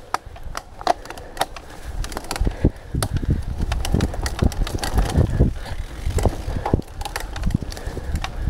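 Cyclocross bike ridden over a bumpy, leaf-covered dirt singletrack: tyres rolling with a low rumble, and the bike rattling and knocking irregularly over roots and ruts.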